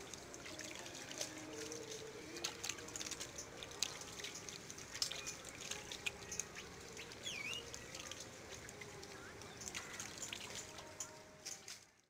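Hands working in shallow muddy water, giving small irregular splashes and trickles.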